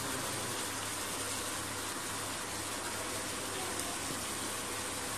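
Chicken pieces sizzling steadily in a pan as they cook in the juices they have started to release, an even continuous hiss.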